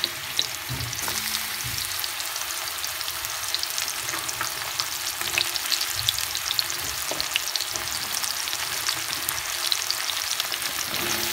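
Chopped mushrooms sizzling in hot oil, freshly added to the pan: a steady frying hiss with many small scattered crackles.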